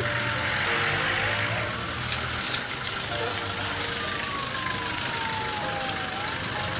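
London black cab (FX4/Fairway-style taxi) with a diesel engine, pulling away and driving off down the street.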